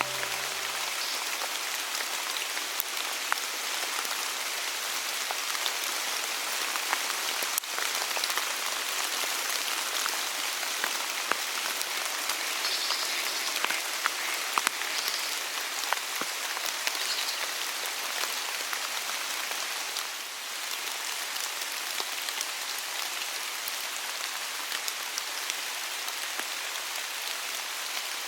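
Steady rain falling, a continuous patter dotted with many individual drop ticks.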